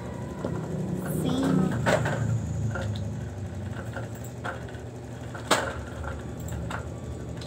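Plastic spoon and small paint bottle handled over a plastic tub, giving two sharp clicks, one about two seconds in and a louder one a few seconds later, with a few faint taps between. A steady low hum runs underneath.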